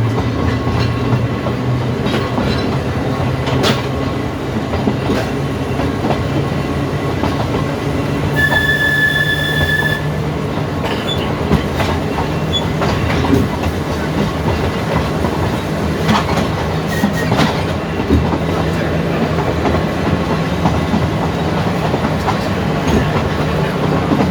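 Manx Electric Railway tram running along the track: a steady low motor and gear hum, wheel noise and scattered rail-joint clicks. About eight seconds in, a high whistle-like tone sounds once for about a second and a half.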